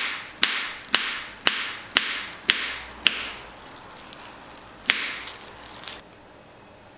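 Kitchen knife slicing a banana on a wooden cutting board: sharp knocks of the blade hitting the board about twice a second, each with a short fading tail, then a pause and one last knock near the end.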